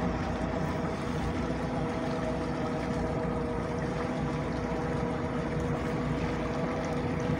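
Boat motor running steadily at trolling speed, a constant hum with water washing in the wake behind the stern.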